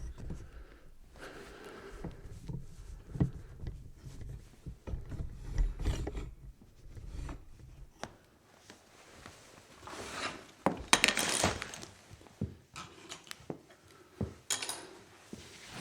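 Clean-up sound effect: rubbing and scraping with scattered knocks, then a dense burst of clattering about ten seconds in and a shorter one near the end.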